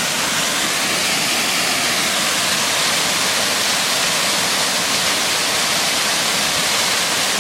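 Creek waterfall pouring into a swimming hole: a steady, even rush of falling water with no change.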